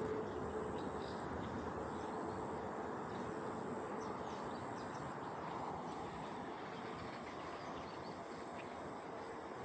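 Faint short bird chirps, mostly around the middle, over a steady wide rumble that slowly fades, with a thin steady high tone throughout.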